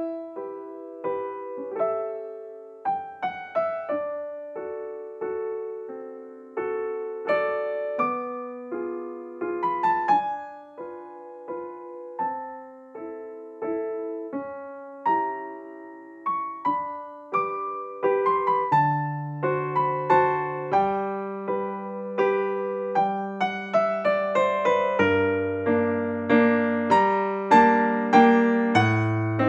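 Gentle solo piano music, single notes struck one after another in a slow, calm melody, with deeper bass notes joining in over the second half.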